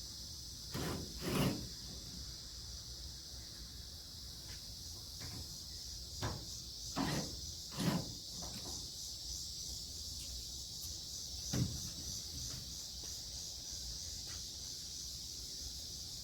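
A handful of dull knocks and thuds: a pair about a second in, three more around six to eight seconds in, and one near twelve seconds. They come over a steady high-pitched hiss.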